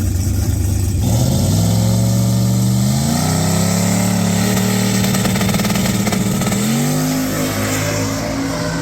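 Turbocharged LS V8 of a Holden VH Commodore wagon launching hard down a drag strip, the engine note climbing in steps through a couple of gear changes after a steady rumble at the start line.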